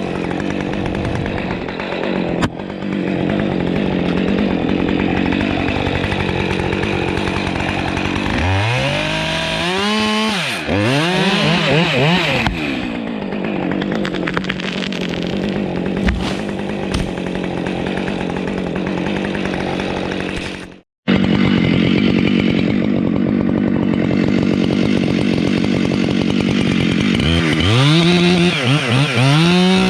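Husqvarna 592XPG two-stroke chainsaw running at high revs and cutting into pine under load. Twice the engine note swings up and down as the throttle is blipped between cuts. The sound drops out for a split second about two-thirds of the way through.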